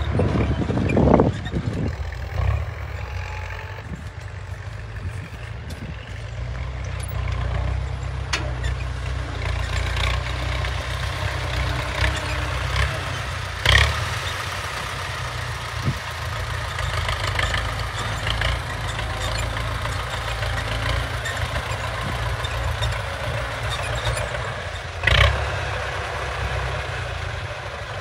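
A farm tractor's diesel engine runs steadily under load while pulling a disc harrow through tilled soil. A few brief louder bursts stand out: about a second in, near the middle and near the end.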